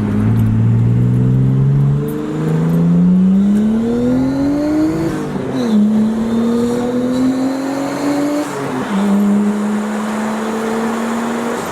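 Nissan Stagea C34 RS4's turbocharged straight-six accelerating hard under boost: the engine's pitch climbs, falls sharply at an upshift about halfway through, climbs again, falls at a second upshift, then holds steady.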